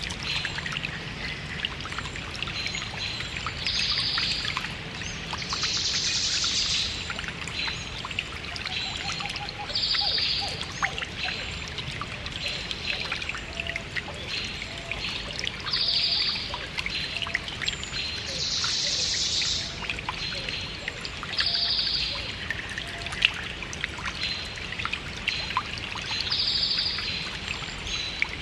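Small stream trickling steadily, with many fine splashes and gurgles, while birds call over it: a short trill repeats every few seconds, with fainter chirps between.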